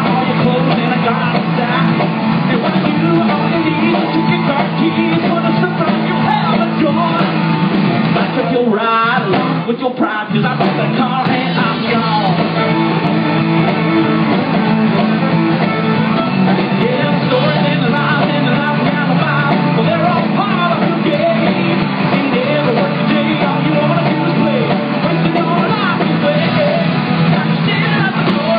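Live country band playing fiddle, electric and acoustic guitars, bass guitar and drums, with a man singing lead. The band drops out for a moment about nine seconds in, then comes back in.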